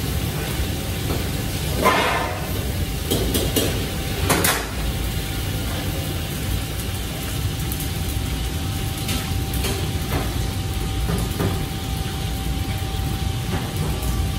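Steady low roar of a commercial kitchen's gas wok burners and extractor hood, with a faint steady whine. Metal clatters of woks and utensils come about two and four and a half seconds in, with lighter knocks later.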